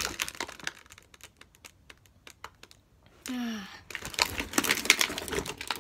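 Quick small plastic clicks and light rustling from toy packaging being handled by hand, sparse at first and busier in the second half. A short falling vocal sound comes about three seconds in.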